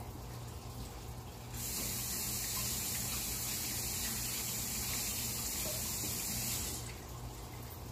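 Kitchen faucet running while hands are rinsed under it: a steady rush of water that comes on sharply, runs about five seconds and shuts off.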